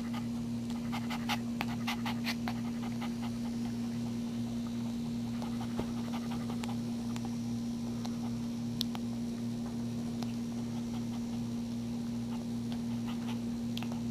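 A dog panting just after whelping, over a steady low electrical hum, with scattered small clicks.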